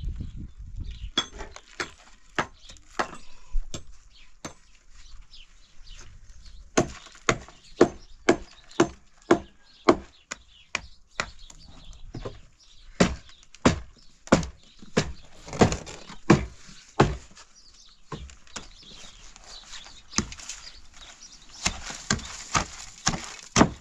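A series of sharp knocks or blows, about one to two a second, in irregular runs with short pauses between them.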